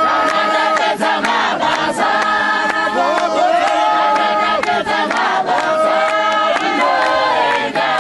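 A congregation singing together in chorus, many voices at once, with frequent sharp percussive hits over the singing.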